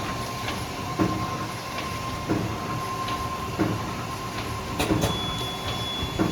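Multi-track sachet packing machine running, with a regular clunk of its sealing and cutting cycle about every second and a quarter over a steady mechanical hum and a steady whine. A second, higher whine comes in about five seconds in.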